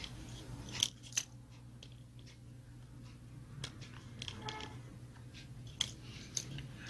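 Faint clicks and taps of small plastic and rubber parts being handled and pressed into place as the primer pump hoses are fitted on a Husqvarna 440 chainsaw's carburetor, with a brief squeak about four and a half seconds in.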